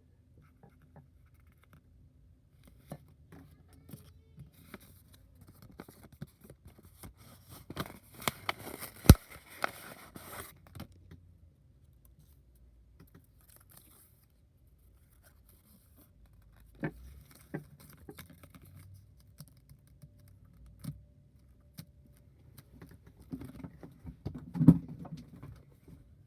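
Box and packaging being handled and opened by hand: scattered taps and clicks, a burst of rustling about eight seconds in with one sharp click, and a thump near the end.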